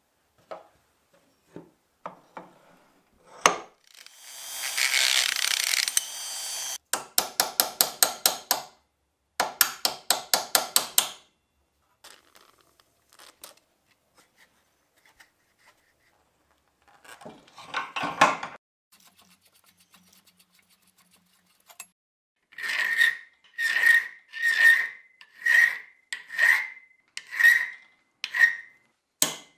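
Hand restoration work on rusty cast-iron and steel grinder parts: light knocks of parts set down on a wooden bench, a hiss of aerosol penetrating oil, and quick runs of rasping strokes. Near the end, about seven slow, even strokes of a hand tool work a rusty threaded rod held in a vise, each with a metallic ring.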